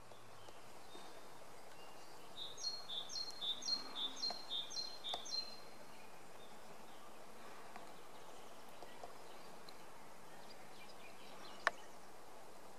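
A songbird singing a phrase of about six repeated two-note units, a higher note then a lower one, starting a couple of seconds in and lasting about three seconds, over faint steady outdoor background noise. A single sharp click comes near the end.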